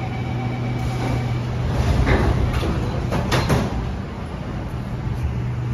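Doors of a Kawasaki & Nippon Sharyo C751B train and the platform screen doors closing: a steady high warning tone for about the first second, then the doors sliding shut with a few sharp knocks between two and three and a half seconds in, over a steady low hum.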